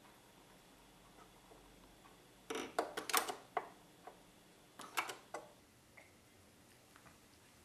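Wood fire in a fireplace crackling: scattered sharp pops, a quick cluster about two and a half seconds in and a few more around five seconds, over a faint steady hush.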